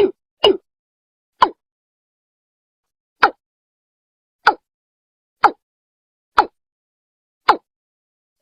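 Watercock (Gallicrex cinerea) calling: short, separate falling notes with silence between them. Two come in quick succession at the start, then after a pause of nearly two seconds the notes come about one a second.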